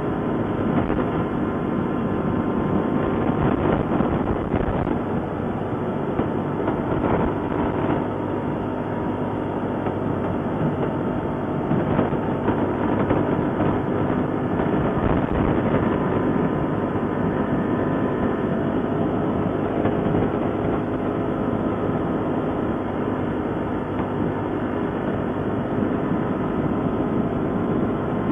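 ATV engine running steadily under way on a trail ride, with a constant rumble and a steady engine drone.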